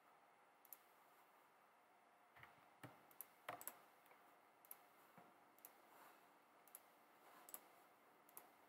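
Computer mouse clicking: about a dozen faint, sharp clicks at irregular spacing, some close together in pairs, over near-silent room tone.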